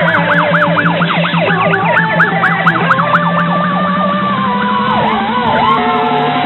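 Fire apparatus sirens sounding on a code 3 response: a fast yelp sweeping up and down about five times a second, overlapped by other sirens. Near the end the fast sweeps give way to slower falling wails and a held tone.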